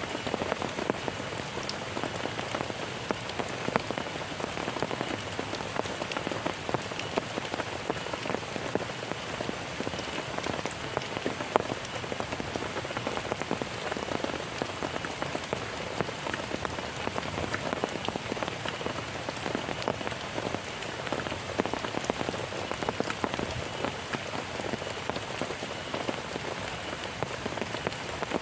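Heavy rain falling steadily, a dense patter of drops striking a surface close by.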